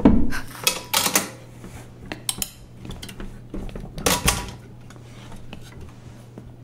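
A series of sharp knocks and light clinks of hard household objects being handled, loudest right at the start, about a second in and about four seconds in, over a faint steady low hum.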